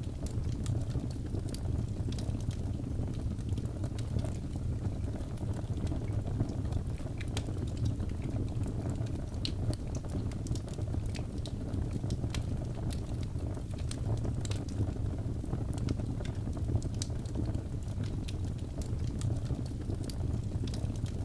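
Wood fire burning in a fireplace: a steady low rumble of flames with frequent small, sharp crackles and pops scattered throughout.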